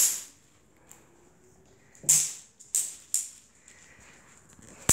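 A collapsed plastic expanding-sphere toy bouncing on a tile floor: five sharp, rattling clatters, one at the start, one about two seconds in, two more close together soon after, and one at the end.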